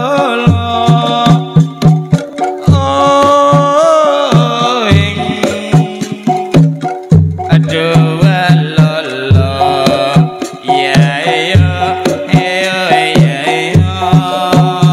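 Live jathilan accompaniment music: hand-drum strokes in a quick, steady pattern with a melody above them that bends and glides in pitch.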